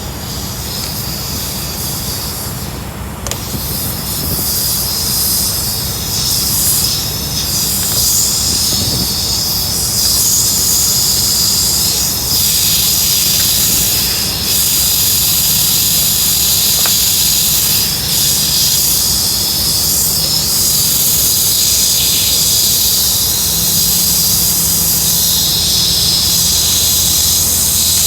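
Steady, loud hiss of air, with a low rumble underneath. The hiss grows slightly louder over the first several seconds, then holds.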